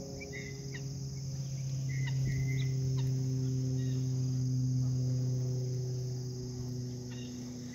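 Rural yard ambience: a steady high buzz of crickets and insects with scattered short bird chirps, over a steady low hum.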